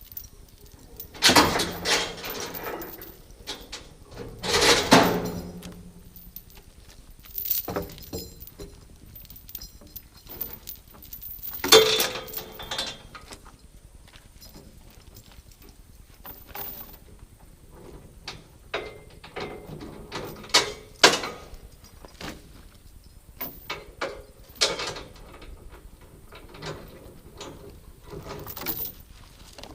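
Log chains and load binders rattling and clanking as a load is chained down, in irregular bursts, the loudest clanks about a second, five seconds and twelve seconds in.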